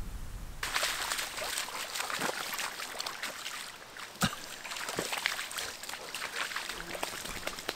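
A dog lapping and splashing in a shallow muddy puddle: a quick run of wet slurps and splashes starting about half a second in, with one sharp click a little after four seconds.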